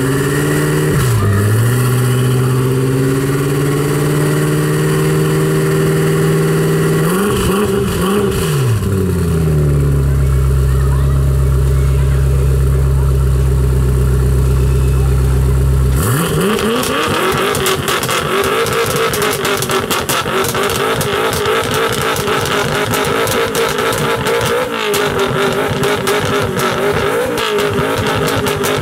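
Tuned BMW M5 with an Akrapovič exhaust revving: the engine is held at steady revs with a few quick blips about a third of the way in. About halfway through the sound changes abruptly. The revs sweep up and hold, with dense, rapid crackling and popping from the exhaust.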